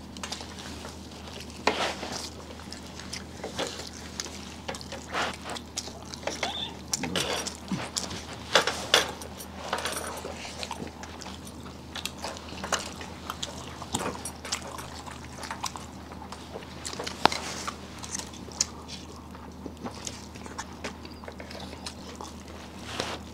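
Close-up eating sounds: wet chewing, lip smacks and slurps of curry gravy, with occasional clinks of dishes, in short irregular bursts over a steady low hum.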